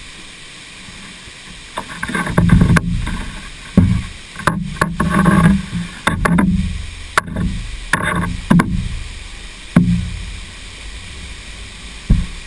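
Water splashing and sloshing close against the camera in irregular bursts, each a second or so long, with sharp knocks among them, over a steady rush of water.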